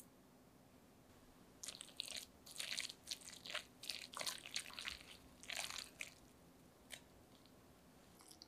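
Silicone spatula stirring shredded cabbage batter with flour and crushed red pepper in a glass bowl: a run of stirring strokes, about three a second, from about one and a half seconds in until about six seconds, then one light tap near seven seconds.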